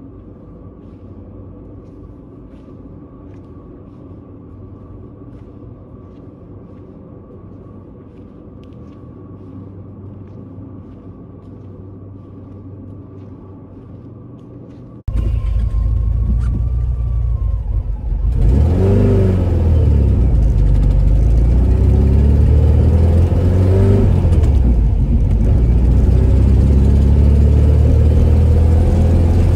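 A low steady room hum, then after an abrupt cut a 1975 Porsche 914's air-cooled flat-four engine heard from inside the cabin, loud and pulling the car along, its pitch rising and dropping several times as it revs through the gears.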